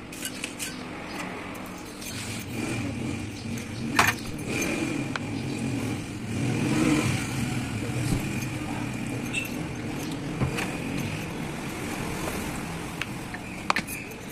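A motor vehicle engine running, growing louder around two seconds in and again near the middle, with a few sharp clinks of metal fork parts in a metal tray, the loudest about four seconds in.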